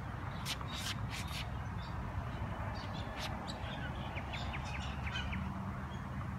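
Tennis ball bouncing again and again off the frame of a tennis racquet: quick, light taps a few times a second. Birds chirp in the background over a steady low rumble.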